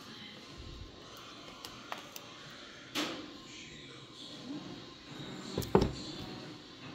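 Cardboard product box being handled and turned over by hand, with a sharp tap about three seconds in and a louder knock near the end, over a faint steady background noise.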